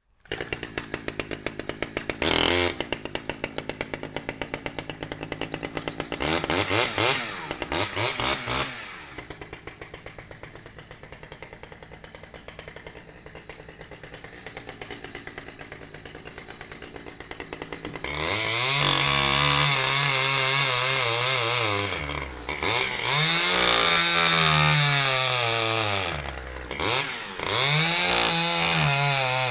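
Chainsaw engine idling with a rapid, even putter and a few short throttle blips. About two-thirds of the way in it is revved hard, its pitch rising and falling in several long swells.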